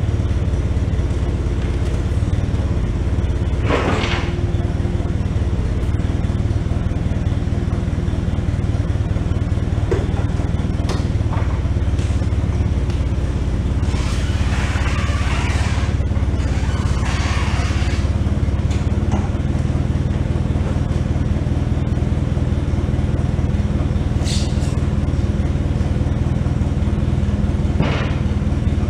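Forklift engine running steadily while the forks lift and carry a long steel lift ramp, with a few sharp knocks and short bursts of hiss along the way.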